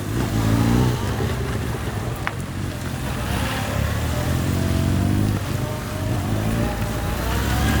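Police motorcycle engines running during drill riding, the engine note rising and falling several times as the bikes speed up and slow.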